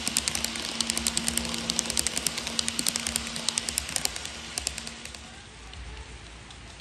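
HO-gauge model electric train passing close by, its wheels clicking rapidly over the rail joints over a steady motor hum. The clicking and hum fade away about four to five seconds in as the last car goes by.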